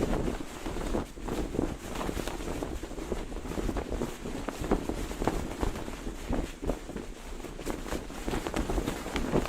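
Cloth flag flapping in strong wind, its fabric snapping irregularly many times a second, over a steady rumble of wind on the microphone.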